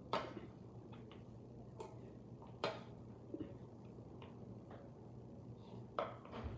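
Half a dozen sharp clicks and short scrapes at irregular intervals, a spoon working at sherbet as it is eaten, over a faint low hum.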